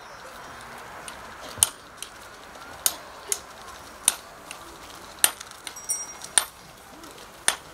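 A donkey's hooves clopping on asphalt as it walks: sharp, separate clicks about once a second, unevenly spaced.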